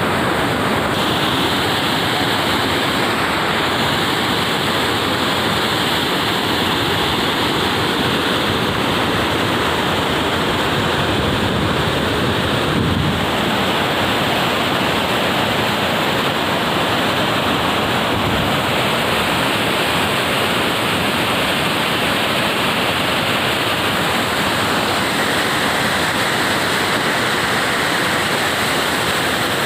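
Waterfall: a steady, loud rush of falling water crashing into its pool, unbroken throughout.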